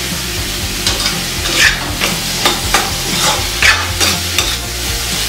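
Metal spatula scraping and stirring potatoes and cauliflower in a metal kadhai, with the curry frying underneath. The scraping strokes start about a second in and come irregularly, roughly twice a second.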